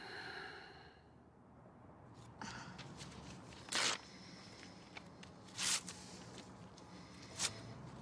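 Quiet room tone broken by four short rustles or swishes, the two in the middle the loudest.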